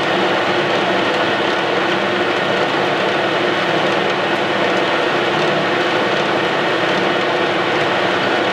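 Metal lathe running under power while its tool turns down a metal shaft, a steady machine sound with several held tones and no pauses.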